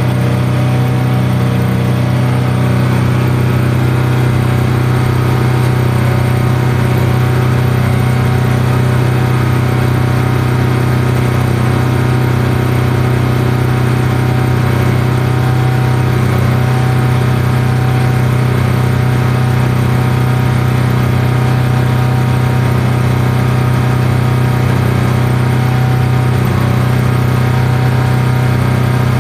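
Denyo ACX140GSS soundproof engine welder running steadily, a loud even engine hum with no change in speed.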